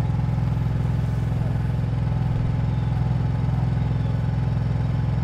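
A vehicle engine running with a steady low drone.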